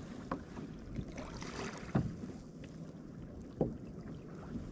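Wind buffeting the microphone and choppy sea water against a fishing kayak's hull, with three short knocks.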